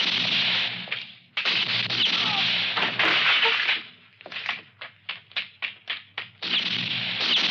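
Pistol shots with long echoing tails, one about a second and a half in. Then comes a rapid run of about nine short sharp cracks, and another echoing shot near the end.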